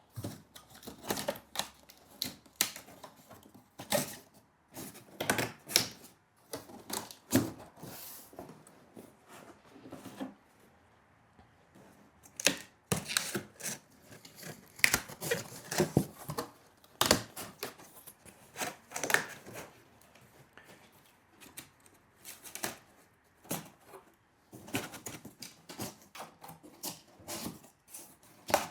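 Corrugated cardboard shelving panels being worked by hand: tabs pushed through slots and folded over. It makes irregular crisp clicks, knocks and scraping rustles.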